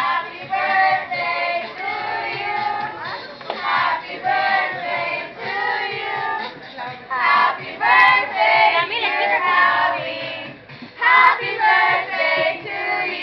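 A group of voices, children's among them, singing a birthday song together.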